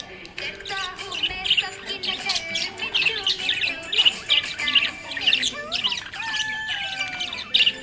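Budgerigar chirping and chattering in a rapid, unbroken stream of short high chirps, with a few longer whistled notes near the end; the happy chatter of a contented budgie.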